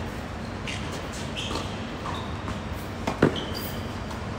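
A tennis ball struck by a racket about three seconds in: a sharp pop, just after a softer knock, in a steady background hum.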